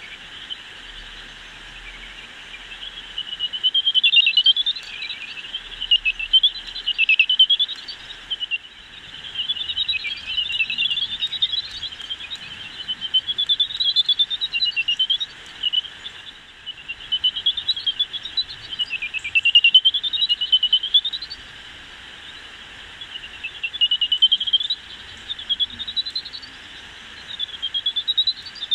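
Greater horseshoe bats' echolocation calls made audible by a bat detector: quick rising chirps, several a second, in passes of a few seconds each as bats fly by. Between passes only the detector's steady hiss remains.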